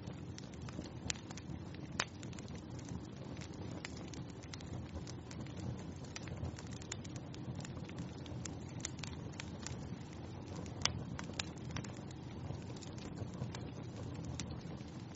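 Wood fire crackling in a fireplace: a steady low rumble of burning with irregular sharp pops throughout, two of them louder, about two seconds in and near the eleven-second mark.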